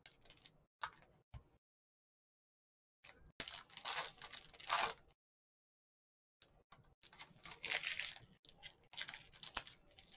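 Foil wrapper of a Panini football card pack crinkling and tearing as it is handled and opened by hand, in short spells of crackly rustling with silent gaps between them.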